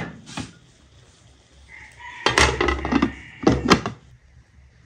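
Cookware lids clattering and scraping: a glass-and-metal lid is lifted off a pot, then a lid is set down on a frying pan, with a ringing tone as it grates on the rim.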